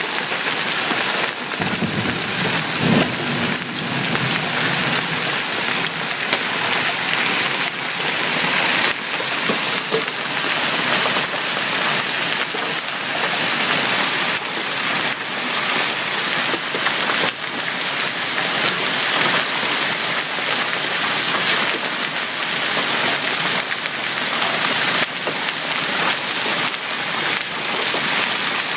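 Large hailstones, golf-ball to baseball size, striking hard surfaces in a downpour: a dense, steady clatter of countless hits merging into a rain-like hiss.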